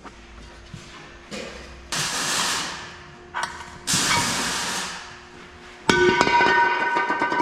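Metal tire-changing tools working on an ATV wheel: two short bursts of hissing, then a sharp metal clang about six seconds in that keeps ringing.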